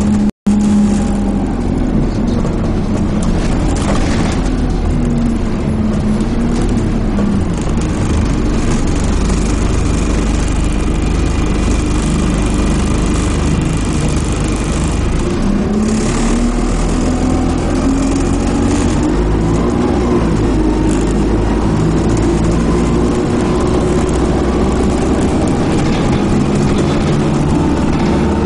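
Dennis Dart SLF single-deck bus's diesel engine, heard from inside the saloon while under way, with steady road and tyre noise. The engine note eases down early on, then climbs again about two-thirds of the way through as the bus accelerates.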